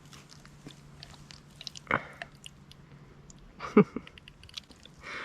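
Scattered small clicks and crackles of hands handling a freshly landed flathead catfish on the bank, with two louder short sounds about two seconds in and near four seconds, over a faint steady low hum.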